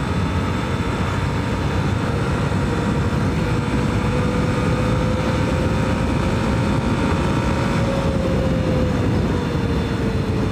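Yamaha FZ-S V2 motorcycle's single-cylinder engine running at road speed under a steady rush of wind and road noise on the microphone. The engine note climbs slowly as the bike speeds up, then drops away after about eight seconds as it eases off.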